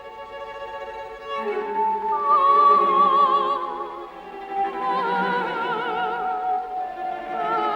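Dramatic orchestral background music: long held notes that swell about a second and a half in, under a high melody with vibrato.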